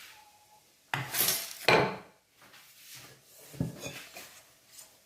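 A bowl and utensils clattering: two loud clatters about a second apart early on, then a few lighter knocks.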